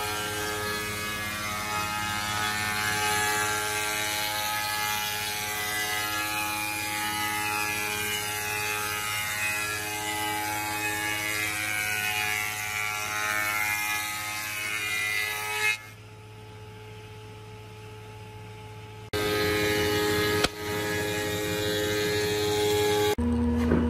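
Spindle moulder (wood shaper) running and cutting a moulding profile along a hardwood board: a steady machine whine of several held tones with cutting noise. About two-thirds through it drops suddenly to a faint hum for about three seconds, then the machine sound returns, with a sharp click soon after and a change to a lower hum near the end.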